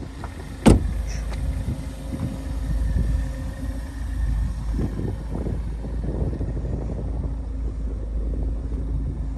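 A Ford Focus ST's front door swung shut with a single solid thud about a second in, followed by a steady low rumble.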